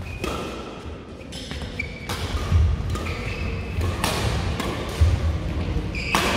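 Badminton doubles rally: repeated sharp racket strikes on the shuttlecock, with short sneaker squeaks and heavy footfall thuds on the court floor between them.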